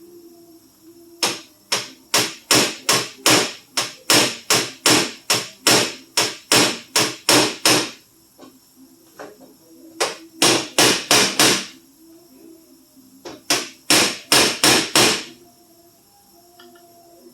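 Hammer tapping the sheet-metal body panel of a Hyundai Palisade to work out a dent. The even blows come about three a second, in a long run of some twenty, then two short runs of about half a dozen each.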